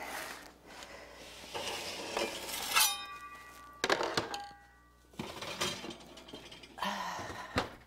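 Metal kitchenware clanking as a pizza goes into the oven: several sharp knocks, the loudest about three seconds in ringing on for a second or two like struck metal, then a few lighter clinks and knocks.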